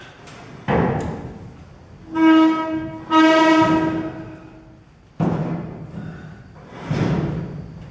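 Five heavy knocks on the elevator's framing, spaced a second or two apart. The second and third ring out with a clear pitched metallic tone for about a second, while the others are duller thuds.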